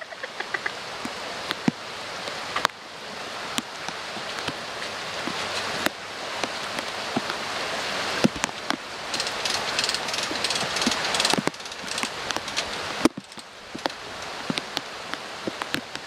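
Steady rain with scattered sharp taps of drops close by, and a stretch of denser crackling near the middle.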